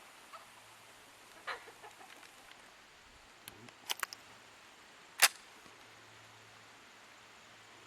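Sharp mechanical clicks from handling a Marlin Model 60 .22 rifle between shots: a quick cluster of small clicks about four seconds in, then one louder sharp click about a second later.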